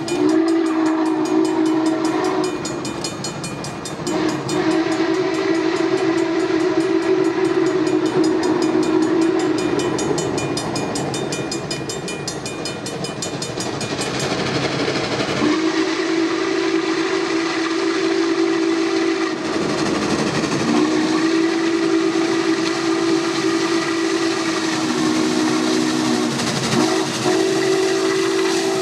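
Norfolk & Western J-class 611 steam locomotive blowing its whistle in a series of long, steady blasts as it approaches, with the running noise of the train underneath.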